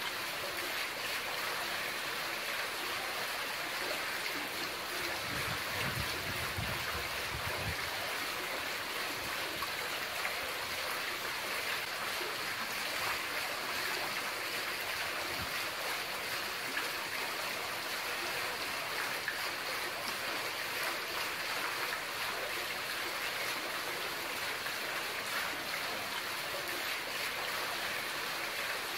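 Water running steadily from the spouts of a şadırvan, a mosque ablution fountain, splashing into its basin. A brief low rumble comes in about five seconds in and fades out near eight seconds.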